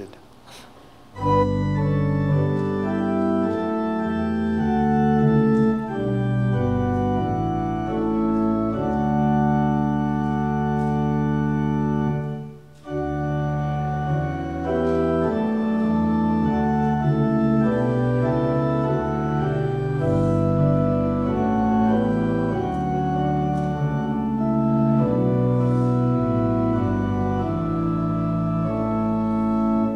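Church organ playing slow, sustained chords of a hymn-like piece. It starts about a second in and pauses briefly about twelve seconds in.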